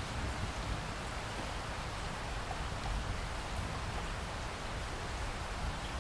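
Steady heavy rain hissing and pattering, with a low rumble of thunder underneath that is strongest in the first second and swells again briefly in the middle.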